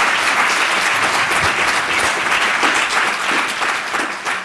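Audience applauding, a dense steady patter of many hands clapping that begins to die away near the end.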